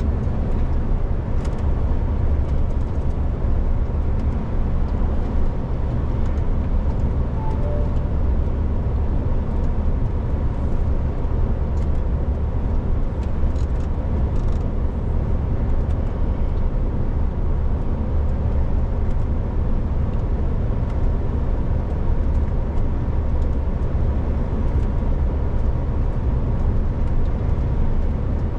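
Heavy truck driving: a steady low rumble of engine and road noise that does not rise or fall, with a faint steady hum on top.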